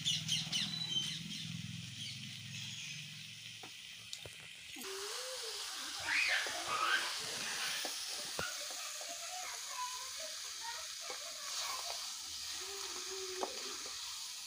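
Crab curry sizzling and hissing in a kadai while a metal spatula stirs the crab pieces through the masala, scraping and clicking against the pan. The crab is being sautéed (kasha) in the spiced gravy.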